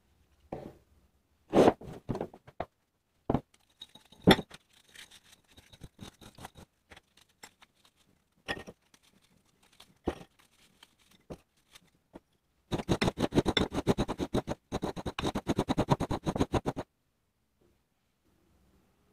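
Dry round biscuits snapped and crushed by hand in a ceramic bowl. There are several sharp snaps in the first few seconds and scattered crunching after them, then about four seconds of dense, rapid crackling as the pieces are rubbed into fine crumbs between the fingers.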